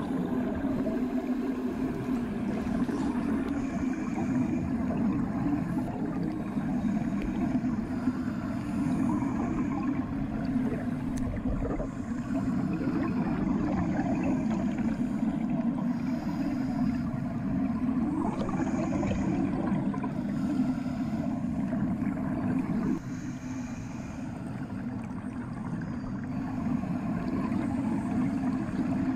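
Muffled underwater sound of bath water: a steady low rumble with soft gurgling, as heard with the ears or microphone submerged. It softens briefly about three-quarters of the way through.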